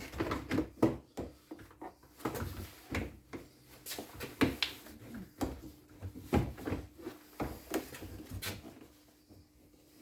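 Irregular plastic clicks and knocks from handling and fitting a car's interior door trim panel and its door cable during reassembly, dying away near the end.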